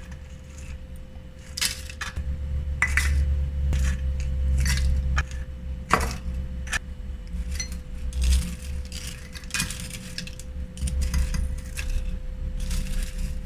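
Crisp fried anchovies (ikan bilis) being scooped with a spoon into a storage container: irregular scraping, rattling and light clinks, with one sharp click about six seconds in.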